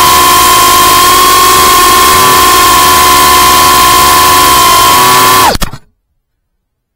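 FPV quadcopter's motors and propellers whining steadily, loud and close from the drone's own onboard camera. About five and a half seconds in they spin down with a quick falling pitch and cut off as the drone lands and disarms.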